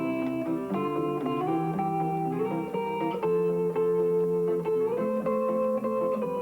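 Guitar played thumbpicking style, an instrumental with plucked melody notes ringing over changing chords.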